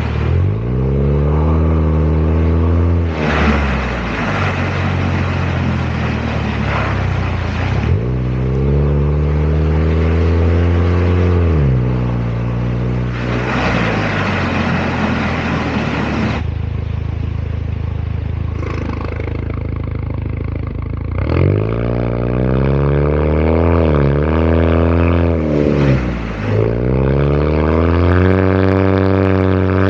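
Chevrolet Malibu with a variable-valve full exhaust under way, its engine note climbing under acceleration and falling off again several times, with a few quicker dips and rises near the end.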